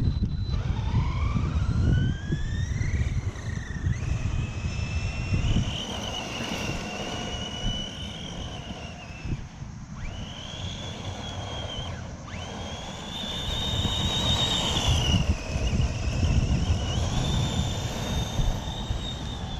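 Electric motor whine of a Helion Avenge RC monster truck running on a 2S battery: it rises in pitch as the truck accelerates, then holds a high whine that cuts out and comes back a few times as the throttle is let off and applied again. Under it, a rough low rumble of scratching from the handheld camera.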